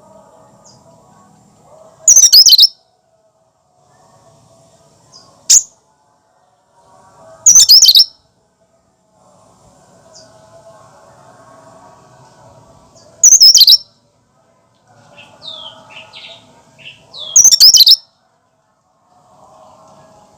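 Cucak kinoi singing in loud, short bursts of rapid high chattering notes, each under a second long and spaced several seconds apart, one of them only a single clipped note; a few softer separate notes come just before the last burst.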